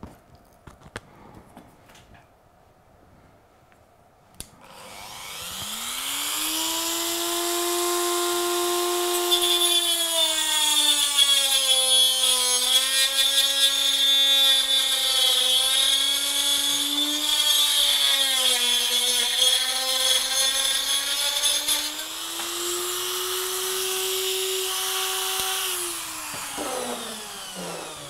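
Variable-speed rotary tool with a cut-off disc spinning up after a few seconds of handling clicks. It then cuts through a hard resin model building, the whine sagging and wavering in pitch under load with a gritty grinding hiss. It winds down in falling pitch near the end.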